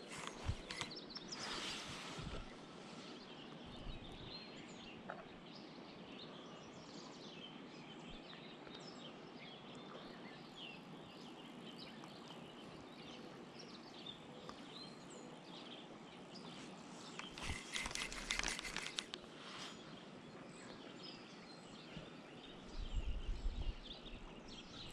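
Outdoor ambience of small birds chirping and calling over a steady hiss. A burst of louder scraping noise comes about two-thirds of the way through, and a few low thumps near the end.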